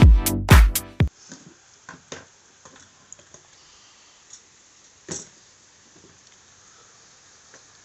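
Electronic dance music with a heavy beat that cuts off suddenly about a second in. After it come faint scattered clicks and taps, with one louder knock about five seconds in.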